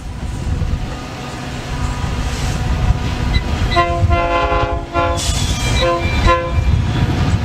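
Train rumbling past with two blasts of a locomotive air horn: the first about a second long starting near the middle, the second shorter.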